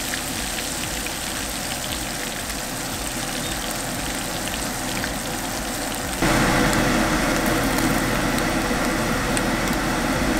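Flour-dusted anchovies (glass minnows) deep-frying in a pan of hot oil, a steady crackling sizzle. About six seconds in, the sizzle turns louder and denser.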